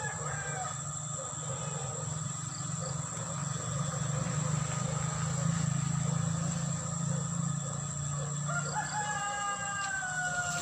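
A rooster crowing once, starting about eight and a half seconds in: one long call that falls in pitch. A steady low hum runs underneath.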